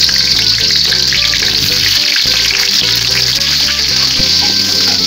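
Chopped onion frying in hot oil with whole cardamom and cinnamon, a steady sizzle. Background music plays underneath.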